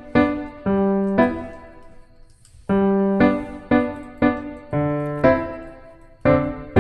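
Piano music: a slow melody of single struck notes, each ringing and fading, with a short pause about two seconds in before the phrase starts again.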